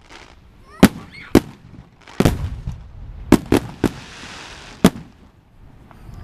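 Aerial firework shells bursting overhead: about seven sharp bangs, some in quick succession, each with a short echoing tail, and a brief hiss between the later bangs.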